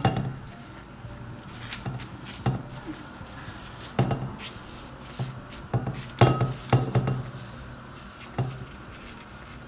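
Irregular light taps and clicks of kitchen handling: phyllo pastry sheets being smoothed into a metal baking tray, with a pastry brush and bowl knocking against the tray. The loudest taps come a little after the middle.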